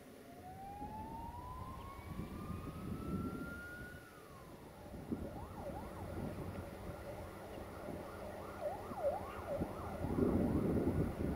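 A siren wails, its pitch rising slowly for about four seconds and then dropping, followed by a string of quick up-and-down sweeps. A rushing noise swells near the end.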